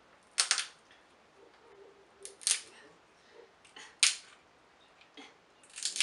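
Snow crab leg shells cracking under a hand-held metal crab cracker: a series of sharp snaps, the four loudest about a second and a half apart.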